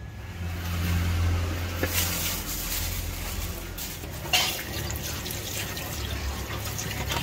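Water running or pouring, over a steady low hum, with a few short knocks; the sharpest knock comes about four seconds in.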